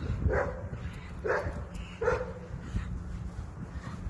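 A dog barking three times, about a second apart.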